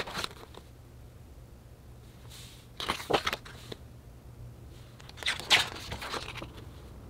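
Pages of a large hardcover photobook being turned by hand: the end of one page turn at the start, then two more turns about two and a half seconds apart, each a quick papery swish and flap.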